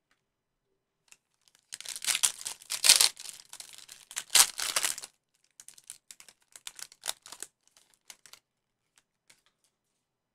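Foil wrapper of a Panini Chronicles football trading-card pack being torn open by hand: a burst of tearing and crinkling starting about two seconds in, loudest around three and four and a half seconds in, followed by lighter, scattered crinkles.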